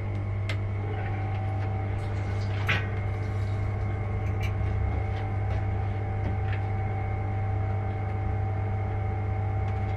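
Small electric brewing pumps running with a steady electric hum while wort and sparge water are pumped between the mash tun and boil kettle. A few light clicks and knocks come from the valves and fittings being handled, the loudest a little under three seconds in.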